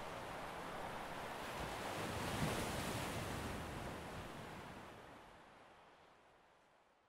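A soft rushing noise, with no clear pitch, swells to a peak about two and a half seconds in and then fades out steadily.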